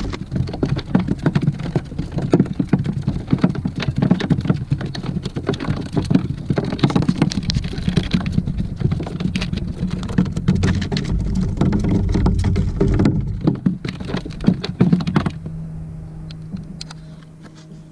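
Small waves slapping and splashing against a plastic kayak hull in a dense, rapid patter close to the microphone. It eases off about 15 seconds in, and a steady low hum takes over.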